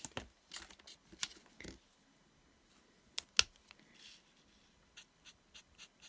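Scattered light taps and clicks of craft supplies handled on a tabletop: paper die-cuts and a marker picked up and set down. The loudest are two sharp clicks close together a little after three seconds in.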